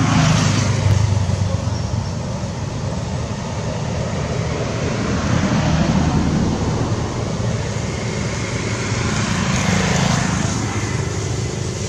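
Steady outdoor background noise: a low rumble with hiss, swelling slightly a few times.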